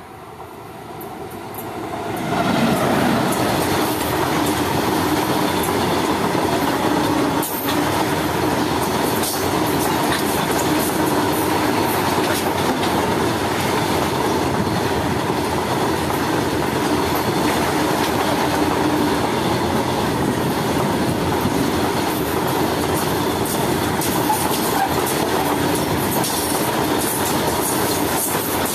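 Freight train with an electric locomotive passing close by: the sound swells over the first couple of seconds as the locomotive arrives, then the long line of covered goods wagons rolls past with a steady, loud clatter of wheels on the track.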